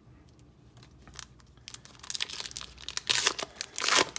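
Foil wrapper of a 2019 Topps Chrome baseball card pack crinkling and tearing as it is ripped open by hand. A few light ticks at first, then a run of sharp crackles, loudest in two bursts near the end.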